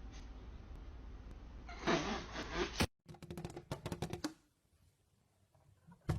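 A cat yowling loudly for about a second, starting about two seconds in, over a low hum. After an abrupt cut comes a quick run of sharp clicks, then a single thump near the end.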